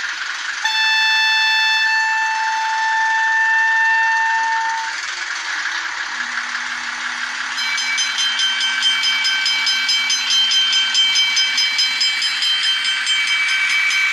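ESU sound decoder in an H0e model railcar playing an O&K diesel locomotive sound file through its small speaker. About a second in, a horn sounds for about four seconds. From the second half, the diesel engine runs with a steady pulsing beat, all with a thin, hissy tone and no bass.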